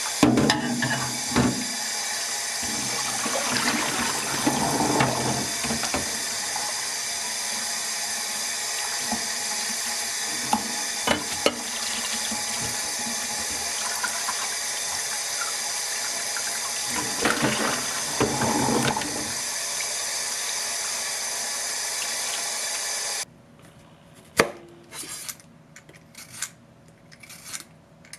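Tap water running into a stainless-steel sink while soaked hijiki seaweed is swished and rinsed in a plastic colander over a bowl, with a few swells of sloshing and some light clicks of plastic. About five seconds before the end the water stops suddenly, and a kitchen knife knocks a few times on a wooden cutting board as a carrot is cut.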